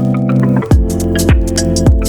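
Background electronic music with a steady kick-drum beat, about one and a half beats a second, under sustained synth chords. The beat briefly drops out just before the middle.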